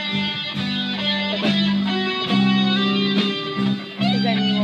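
Live rock band playing an instrumental passage with no singing: an electric guitar plays a lead line with bent notes over sustained low backing notes.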